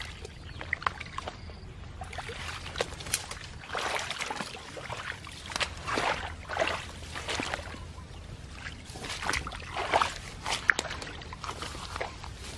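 Footsteps sloshing through shallow water and wet grass, an irregular run of splashes and swishes.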